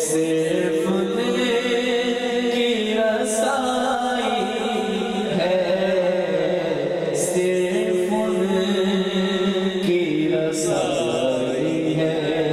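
A man singing an Urdu naat (devotional poem) into a microphone, drawing out long held notes that bend from one pitch to the next.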